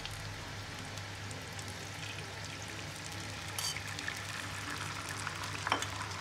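Beaten egg frying in hot oil in a frying pan, sizzling steadily, with a couple of brief clicks partway through and near the end.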